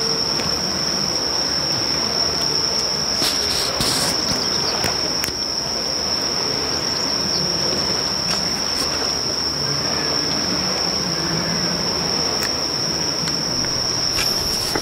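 An insect, cricket-like, keeps up one unbroken high-pitched trill over a loud, steady rushing noise, with a few faint clicks. It all cuts off abruptly at the end.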